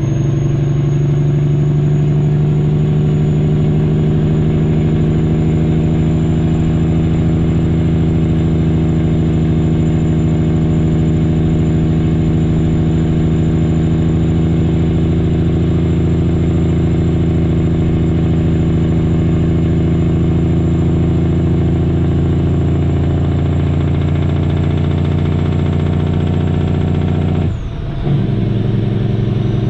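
Big-cube diesel engine of a semi truck heard from inside the cab, running steadily while it holds the truck back on the grade, its pitch creeping up a little at first. Near the end the engine note drops out for a moment and comes back at a new pitch as the 18-speed transmission is shifted.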